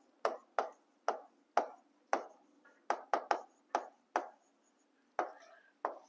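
Stylus tapping on the glass screen of an interactive smart board as words are handwritten: about a dozen sharp taps at an irregular pace, roughly two a second.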